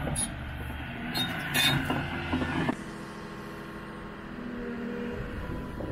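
Heavy diesel engine running, with a few short hissing bursts partway through; near the middle the sound drops abruptly to a quieter steady engine hum.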